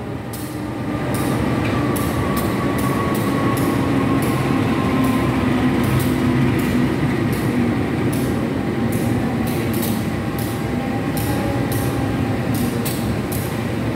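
A passenger train pulling into the station on a nearby track: a steady rumble with a faint whine that falls slowly over the first few seconds, and repeated clicks of wheels over the rails.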